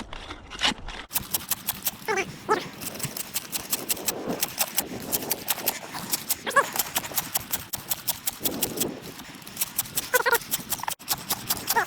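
Homemade hand ice saw cutting through thick ice: a rapid, rasping run of teeth biting in, stroke after stroke. A few short, high whines come and go over it.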